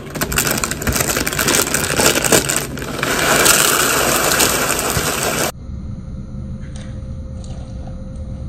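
Small, colourful cereal pouring out of a plastic bag into a bowl, with bag rustling and a dense rattle of pieces, loudest a few seconds in. About five and a half seconds in it cuts off abruptly to a quieter low hum as almond milk is poured from a carton into the bowl.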